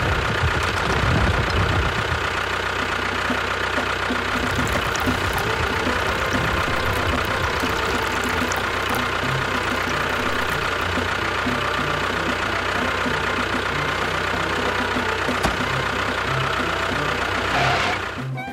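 An engine running steadily at idle with a low, even knocking beat.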